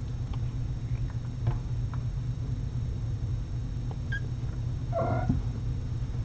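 A steady low hum with a few faint soft taps, and about five seconds in a cat gives one short mew.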